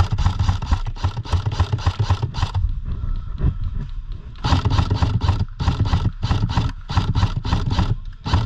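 Running footfalls with gear rattling, about four steps a second, easing off for about a second midway, then picking up again.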